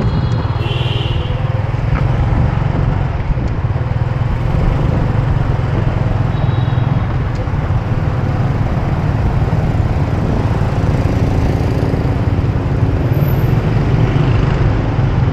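Steady rumble of riding a motor scooter through city traffic, with wind buffeting the microphone and heavy low-end noise throughout.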